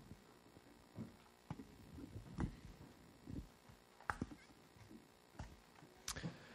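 Faint, irregular footsteps, light knocks and shuffling of people moving about and settling in a quiet room, about one knock every half second to second.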